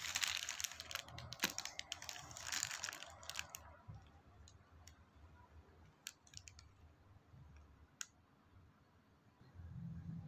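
A plastic courier mailer bag crinkling and rustling as it is handled, dense and crackly for about three and a half seconds, then a few separate clicks and taps.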